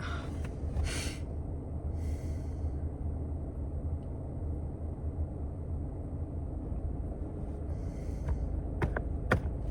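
A man breathing out heavily three times, in sighs, over a steady low rumble, with a few sharp clicks near the end.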